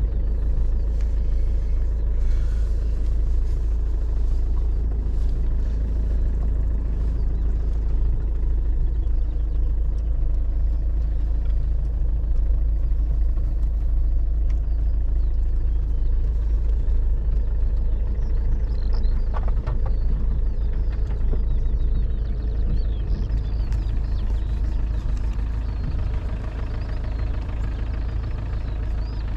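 Car driving slowly over rough grassland, its engine running steadily with a deep rumble from the tyres and body, and a few faint knocks and rattles, heard from inside the cabin.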